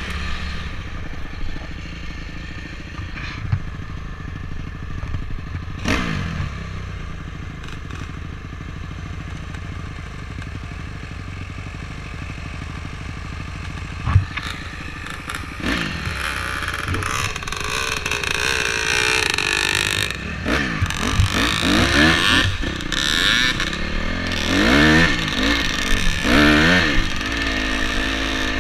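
Dirt bike engine heard from the rider's helmet, running fairly steadily for the first half. From about halfway it accelerates in repeated rising revs, as when shifting up through the gears, and gets louder. There is one sharp knock about halfway through.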